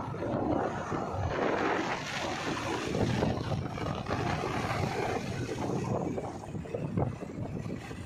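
JCB 3DX backhoe loader driving along a road: its diesel engine running and tyres rolling, a steady rumble with wind buffeting the microphone.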